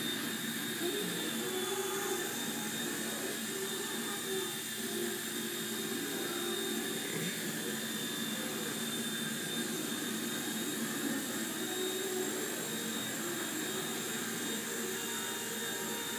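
Align T-Rex 100 micro electric RC helicopter in flight, its motor and rotor making a steady high-pitched whine.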